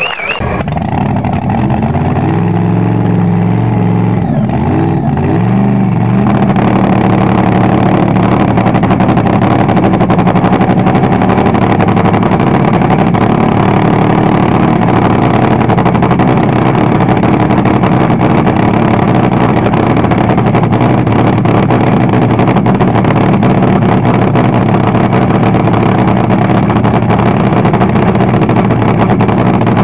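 Supercharged nitro-burning V8 of a front-engine Top Fuel dragster firing up just after the start and then running at a loud, rough, steady idle: the cackle of a nitro engine.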